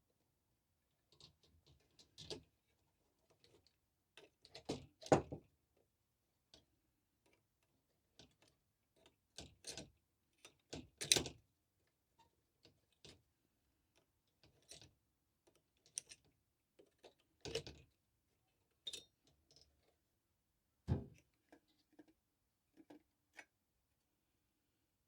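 Irregular clicks, taps and light metal knocks from hands and tools working on an electric stove's heating element and its fittings, with the loudest knocks about 5 and 11 seconds in.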